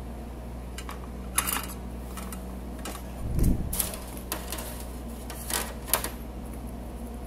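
Scattered light clicks and taps of small objects being handled on a soldering bench, with one duller thump about three and a half seconds in, over a steady low electrical hum.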